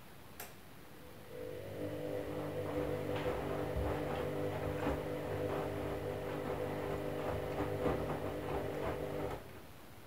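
Candy front-loading washing machine tumbling a wash load: after a single click, the drum motor hums steadily for about eight seconds while the water and laundry slosh and patter inside, then the drum stops suddenly.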